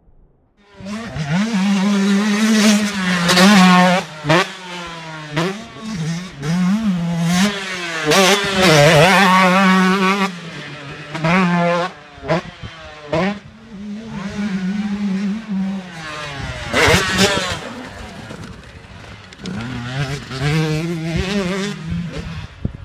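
Husqvarna TC 125 two-stroke motocross bike ridden around a dirt track, its engine revving up and dropping back again and again as the rider works the throttle and gears. There is a short loud rush of noise about three quarters of the way through.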